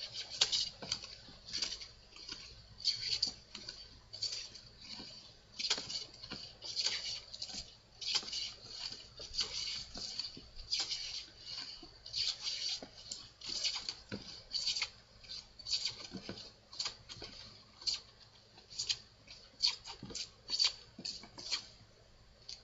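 Hand plane shaving wood on a workbench leg: a steady run of short, hissing strokes, about one or two a second.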